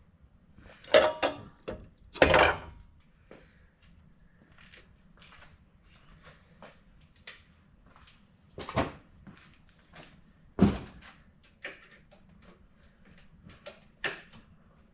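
Intermittent knocks, clunks and small clicks of hands working on a car, tools and parts being handled, with a few louder knocks spread through.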